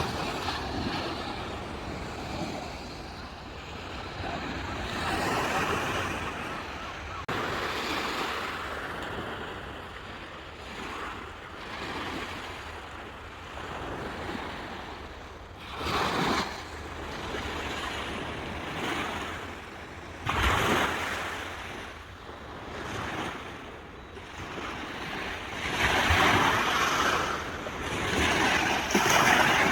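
Sea waves breaking and washing up the shore, the surf swelling and falling away in irregular surges, with the loudest breakers about 16 and 20 seconds in and a long swell near the end. Light wind on the microphone.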